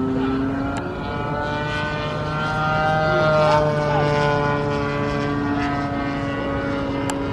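Engine of a radio-controlled scale P-26 Peashooter model running in flight, its pitch drifting slowly as the plane moves. It grows louder about three and a half seconds in as the plane passes closest.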